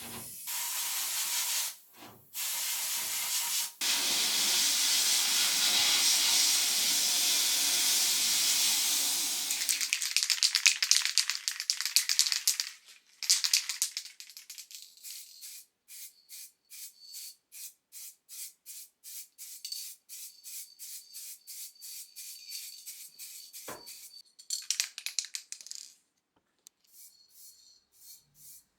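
Abrasive blast cabinet hissing steadily as a brake caliper is blasted clean, then a long run of short, even pulses about two a second.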